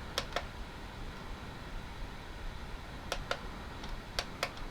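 Small plastic control buttons on a digital microscope clicking in quick pairs, each press followed by a second click a fraction of a second later: once near the start, then twice more about three and four seconds in, as its menu settings are paged through. A low steady hum of room noise runs underneath.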